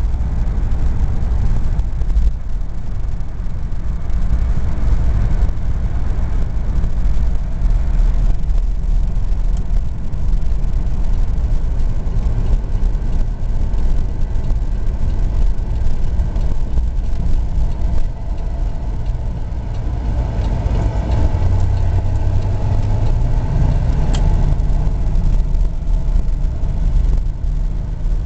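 1969 Cadillac limousine's 472 V8 and tyres heard from inside the cabin while driving: a steady low rumble that grows heavier for a few seconds about twenty seconds in.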